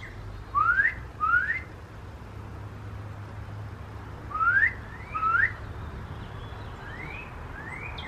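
A songbird singing short, clear, rising whistled notes in pairs: three pairs, the last pair fainter.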